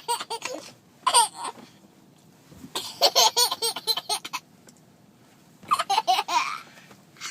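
Baby laughing hard in repeated bouts of quick, high-pitched pulses, separated by short pauses, the longest bout lasting about a second and a half.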